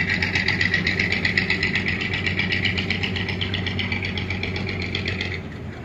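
An engine running steadily with a fast, even throb, cutting off abruptly about five seconds in.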